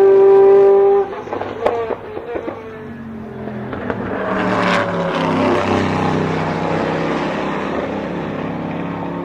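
A race car's engine at high revs goes by close and cuts off about a second in as it lifts, with a few sharp pops as it slows. Then another race car's engine builds and revs, loudest around the middle, and slowly fades away.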